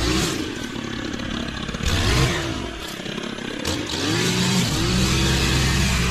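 Small gasoline engine of lawn-care equipment running, easing off twice and revving back up before running steadily.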